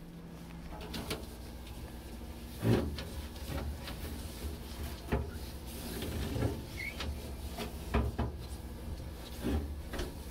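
Irregular knocks and clatter of refrigerator shelves, drawers and bins being handled during cleaning, about seven sharp bumps spread across the time, the loudest a few seconds in, over a steady low rumble.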